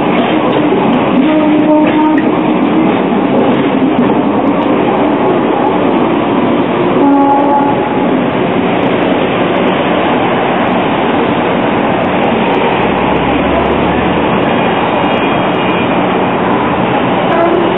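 Double-deck electric tram running past on its rails: a steady, loud rolling noise with short squealing tones in the first few seconds and again about seven seconds in.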